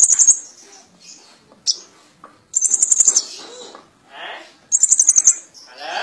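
Caged sunbird singing: short bursts of very high, rapid chattering trills about every two seconds, with softer, lower chirps between.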